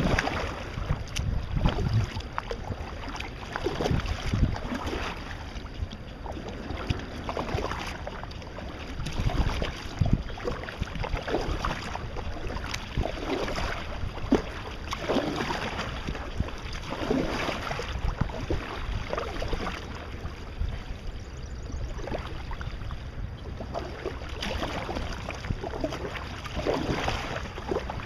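Kayak paddling: the paddle blades dip and splash in the water with a stroke every second or two, over a steady hiss of moving water. Wind rumbles on the microphone.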